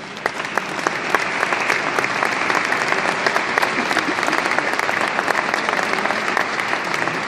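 Audience applauding, the clapping building up in the first second and then holding steady.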